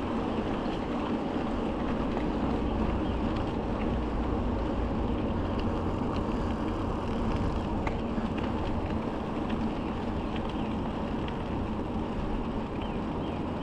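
Steady rolling noise of a bicycle riding on a crushed-stone trail, tyre rumble mixed with wind on the microphone, with scattered small ticks.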